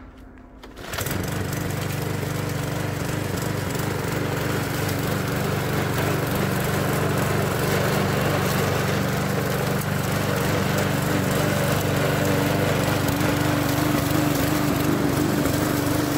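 Walk-behind petrol lawn mower engine starting up about a second in, then running steadily at constant speed while mowing grass along the edge of a path.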